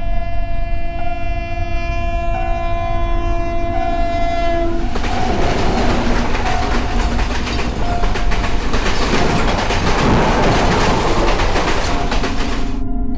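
Diesel locomotive sounding its horn in one long steady blast for about five seconds, then the train running past close by with engine rumble and the clatter of wheels over the rail joints.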